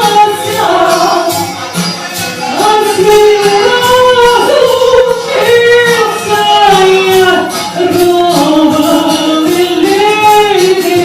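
A song with a singing voice over instrumental accompaniment, a tambourine jingling in a steady beat throughout.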